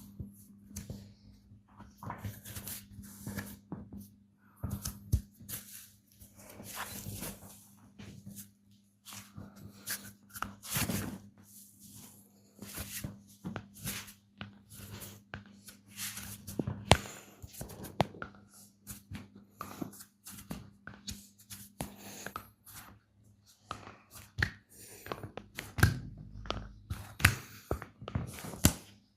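Hands working over bare skin during a deep tissue massage: irregular rubbing and pressing sounds broken by sharp taps and cracks, over a faint steady hum.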